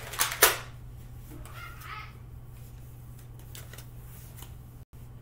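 Two short sharp knocks in the first half second, then a child's voice, faint, about two seconds in, over a steady low hum.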